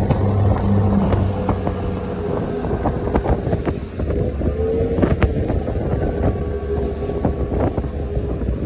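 Passenger ferry's engines running with a steady low drone, under wind buffeting and crackling on the microphone and the rush of water along the hull.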